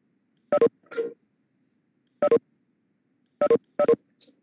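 Several short electronic beep tones from Cisco Webex Meetings, spaced irregularly and with a quick double beep near the start. They are the meeting's notification tones as participants leave the call.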